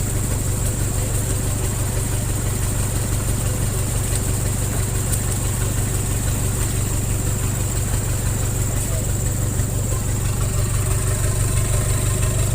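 Off-road 4x4 engine idling steadily, a constant low hum, with a steady high-pitched hiss above it.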